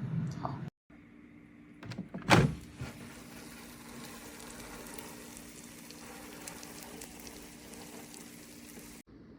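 A sharp thump about two seconds in, then a steady low hum with faint scattered crackles.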